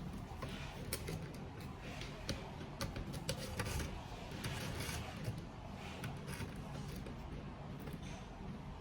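Irregular small clicks and taps of a screwdriver, screws and the plastic casing of a fusion splicer being handled while its outer cover is unscrewed, over a steady low hum.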